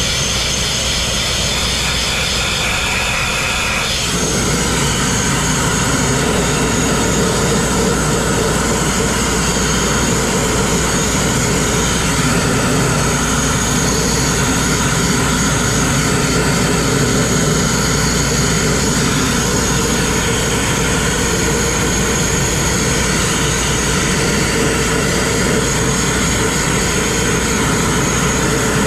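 Grit-blasting nozzle running continuously: a steady, loud rush of compressed air and abrasive grit stripping rust and paint from steel. The sound changes character about four seconds in.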